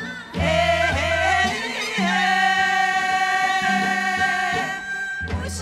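A group of women singing a Korean folk song (minyo) over backing music with low bass notes, holding one long note from about two seconds in.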